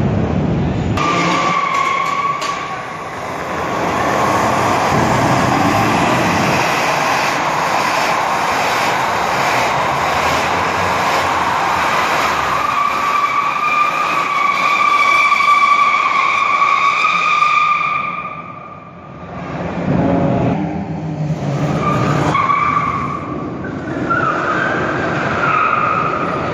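Car tyres squealing and engines revving as cars spin donuts and a pickup truck does a burnout. The squeal holds one steady high pitch for several seconds, breaks off suddenly about two-thirds of the way through, then comes back in shorter squeals.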